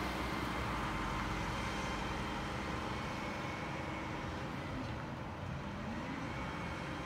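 A car drives off down a residential street, its low rumble and tyre noise fading over the first few seconds. Under it, a distant Mack LR diesel garbage truck runs steadily.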